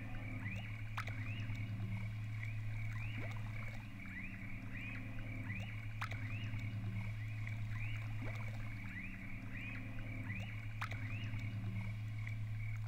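Ambient soundtrack soundscape: a steady low drone with short rising chirps repeating about twice a second, and three sharp clicks spread through it.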